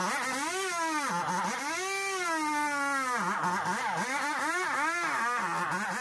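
Two-stroke chainsaw running while it cuts through a coconut palm trunk. The engine's pitch keeps sagging and rising again as the chain bites into the wood and frees up, with several quick dips near the middle.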